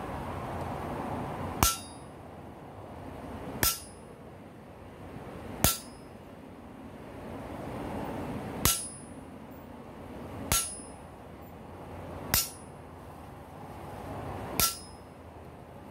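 Hammer blows on a handled top tool held against a red-hot rail spike on the anvil: seven sharp metallic strikes about two seconds apart, each with a brief ring, over a steady rushing noise.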